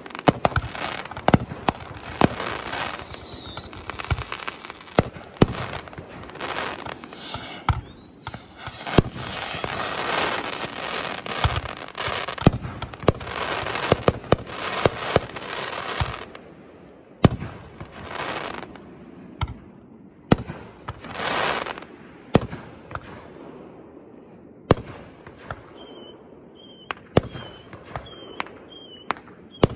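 Fireworks display: a rapid string of sharp bangs from aerial shells over dense crackling for about the first half. After that the bangs thin out to separate booms, with a few short bursts of crackle.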